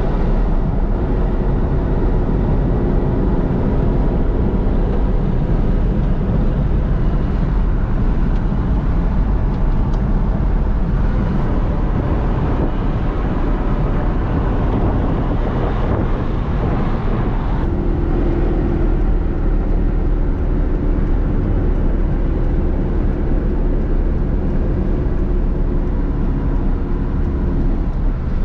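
Land Rover driving on the road: a steady engine and road rumble. The engine note shifts to a new steady pitch about two-thirds of the way through.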